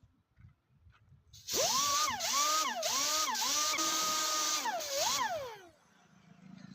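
Air-powered rotary tool running at speed with a loud hiss, its pitch dipping and recovering about four times as it is pressed into the tyre, typical of buffing or reaming a truck tyre's puncture hole for a mushroom plug. It winds down and stops near the end.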